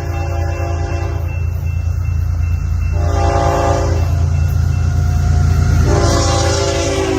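Train locomotive air horn sounding three blasts over the heavy low rumble of the passing train: one blast ending about a second in, a short one about three seconds in, and a longer one starting near the end.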